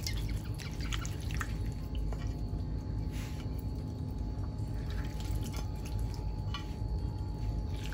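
Mola fish curry with radish and green onion bubbling wetly in a frying pan of spiced water, with a few light clicks from a spatula in the pan, over a steady low hum.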